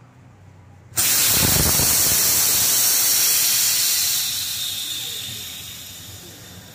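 Old R600a refrigerant venting from a Hitachi inverter refrigerator's sealed system: a loud hiss that starts suddenly about a second in, holds steady, then fades over the last couple of seconds as the system empties.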